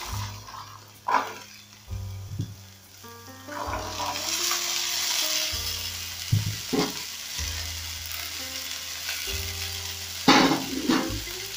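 Diced carrots, frozen peas and green capsicum dropped into hot oil in an aluminium frying pan, sizzling, with a few sharp clatters as the pieces land. The sizzle grows louder about four seconds in, as the frozen peas go in.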